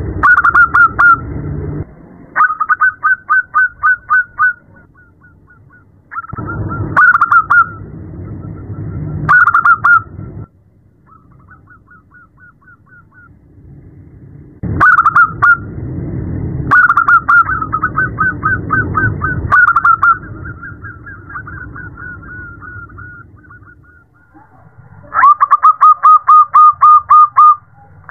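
Zebra dove (perkutut) calling, presented as a female calling to a male: a series of phrases, each a fast run of evenly repeated staccato cooing notes, with short pauses between them. The loudest phrase comes near the end.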